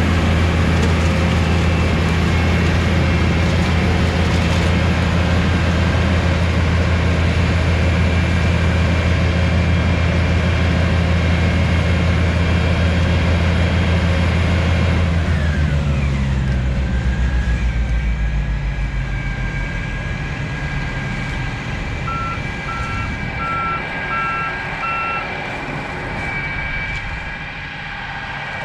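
Ear corn picker's diesel engine running hard at working speed, then throttled down about halfway through, its pitch falling and the sound getting quieter. Later there is a run of five quick electronic beeps.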